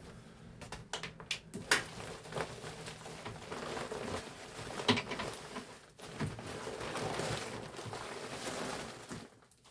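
Scattered knocks, clicks and scraping of old HVAC return ductwork being handled and worked loose, with a stretch of steadier rustling near the end.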